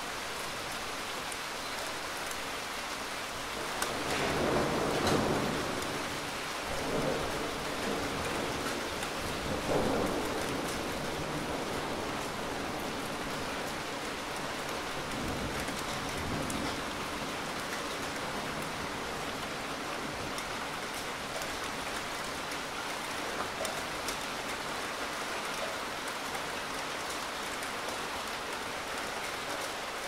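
Steady heavy rain, with rolls of thunder rumbling about four seconds in and again around ten seconds, and a weaker one in the middle.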